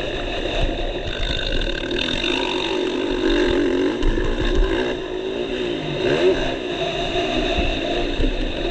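Motocross bike's engine revving up and down as it is ridden hard on a dirt track, heard from a helmet camera.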